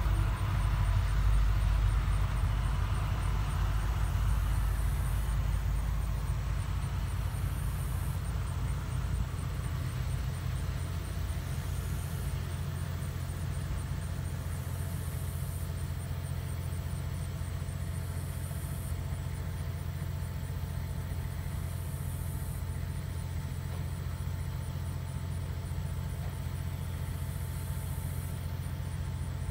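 Parked delivery box truck's engine idling steadily, a low even rumble that is a little louder for the first few seconds.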